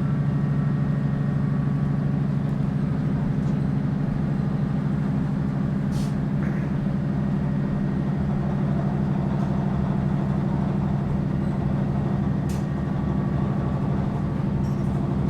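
Underfloor diesel engine of a Class 156 Sprinter unit running steadily under power, a loud, even drone, with two brief clicks, one in the middle and one near the end.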